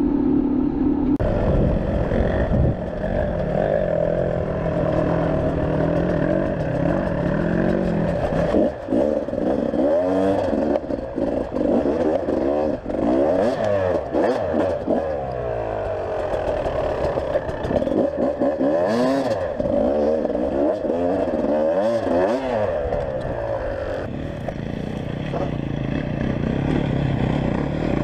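Enduro dirt bike engine under way on a trail, its revs rising and falling over and over, with scattered knocks and rattles.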